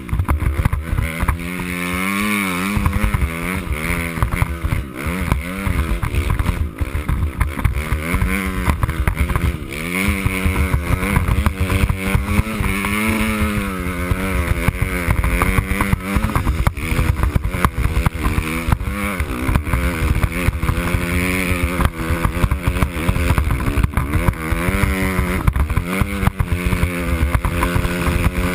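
Dirt bike engine revving up and down as it is ridden through snow, its pitch rising and falling every second or two with the throttle.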